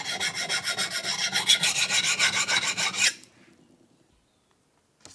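Steel knife blade being drawn back and forth on a Dia-Sharp diamond hone: fast, even rasping strokes that raise a burr on the edge, stopping abruptly about three seconds in.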